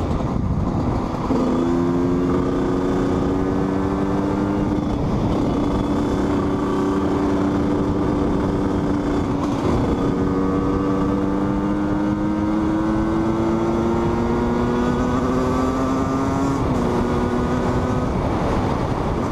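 HM CRM 125's two-stroke single-cylinder engine pulling along the road, its note climbing slowly and stepping down in pitch a few times, as at gear changes, over wind rush on the microphone.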